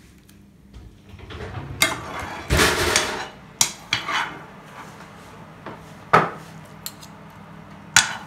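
Metal spoons scraping and clinking against a frying pan and a stainless steel mixing bowl as cooked leeks are spooned across. A few sharp knocks, with a longer, louder scrape about two to three seconds in.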